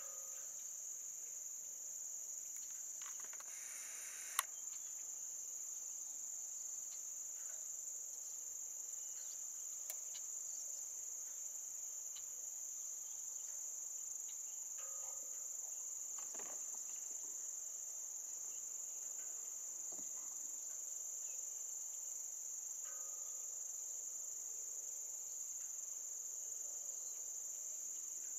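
A steady, high-pitched chorus of crickets trilling without a break, with a single sharp click about four seconds in.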